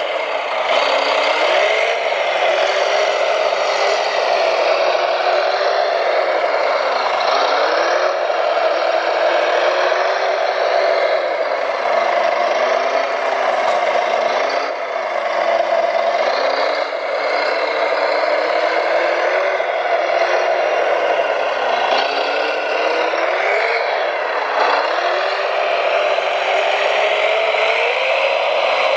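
Electric drive of a hand-built RC construction machine whining steadily, its pitch rising and falling again and again as the throttle is worked.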